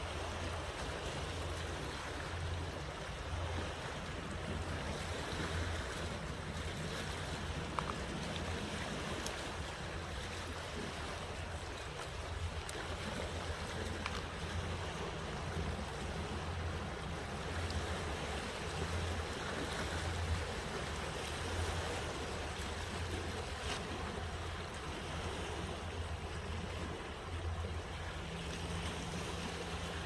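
Small sea waves washing steadily against a rocky shore.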